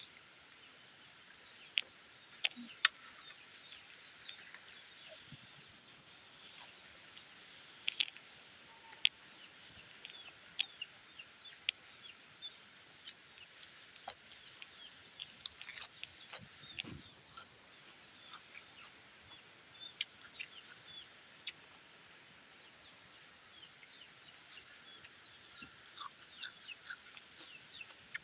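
Chickens clucking and chirping, with scattered sharp clicks over a steady high hiss.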